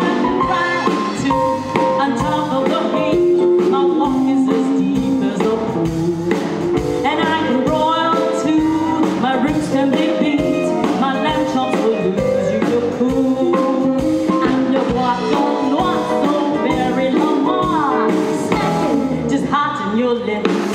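A woman singing a show tune into a handheld microphone over instrumental backing music.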